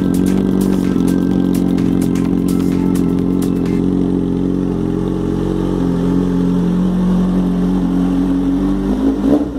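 Kawasaki Z750's inline-four engine idling steadily through an aftermarket stainless-steel slip-on exhaust and link pipe. Near the end the throttle starts to be blipped.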